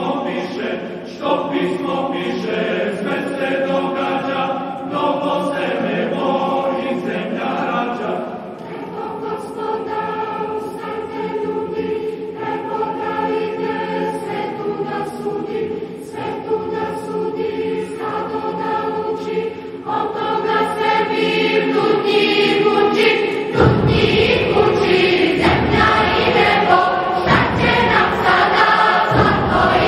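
Large mixed choir of men, women and children singing a Serbian hymn in sustained, shifting chords. It grows louder about two-thirds of the way through, where a deep low part comes in beneath the voices.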